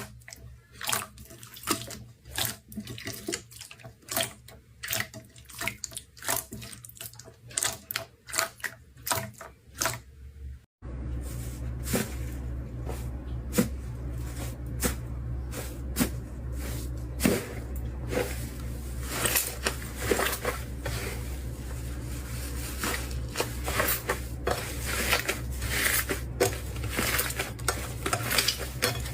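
Slime being squeezed and poked by hand: a run of short, wet clicks and pops, about one or two a second. About eleven seconds in it cuts to another clip, where denser squishing and popping sits over a low steady hum.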